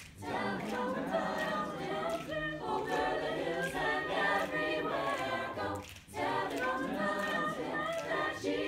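Mixed-voice a cappella choir singing with no instruments, with a short pause about six seconds in.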